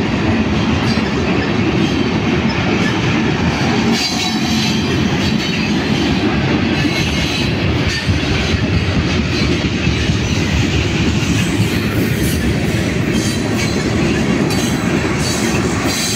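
A freight train's cars, tank cars, covered hoppers and gondolas, rolling past close by: a steady rumble and clatter of steel wheels on the rails.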